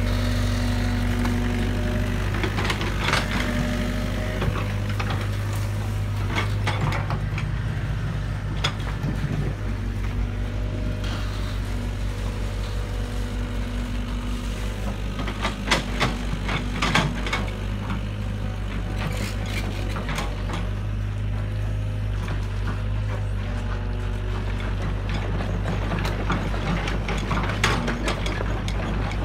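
Excavator's diesel engine running steadily while the bucket digs into mud and debris. Scattered sharp knocks and clatters from the bucket and its linkage, most prominent around the middle and near the end.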